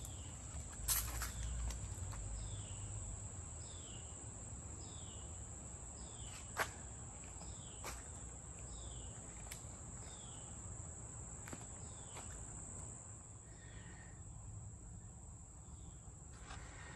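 Outdoor summer ambience: insects drone steadily at a high pitch while a bird repeats a short falling call about once every three-quarters of a second, stopping about 13 seconds in. A few light knocks, one sharper than the rest about six and a half seconds in.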